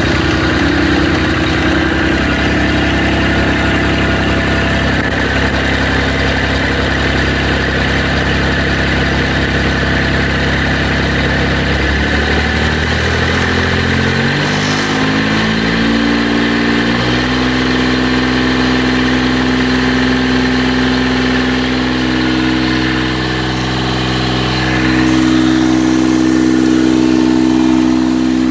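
Kubota D1105 three-cylinder diesel engine running steadily at low speed, then throttled up about halfway through: its speed climbs over several seconds and holds steady at higher revs.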